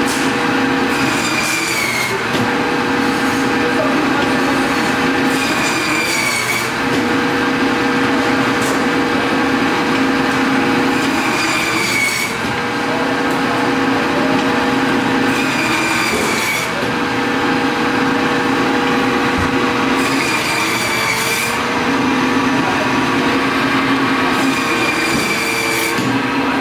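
Meat band saw running steadily, its blade screeching briefly each time the butcher pushes a slab of beef through it, about every four to five seconds, six cuts in all.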